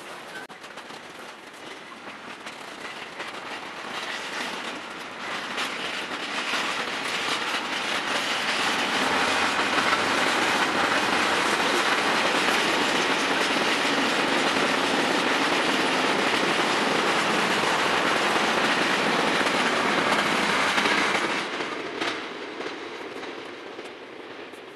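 Freight train of container and tank-container wagons rolling past, wheels clattering over the track. The noise builds to its loudest in the middle and fades near the end as the last wagons go by. The footage is sped up four times.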